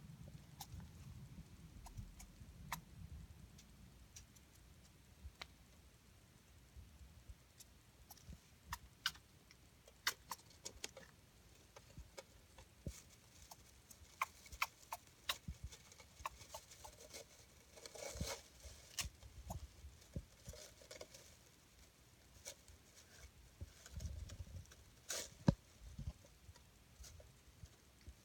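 Kinkuma (golden Syrian) hamster squeaking: short squeaks and small clicks at irregular intervals, busier in the second half.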